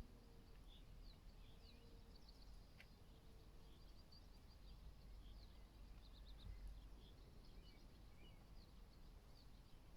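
Faint distant birdsong: many short, high chirps and trills scattered through, over a low, steady outdoor rumble.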